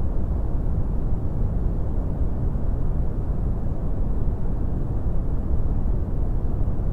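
Steady brown noise: a deep, even rumbling hiss with most of its energy in the low end, unchanging throughout.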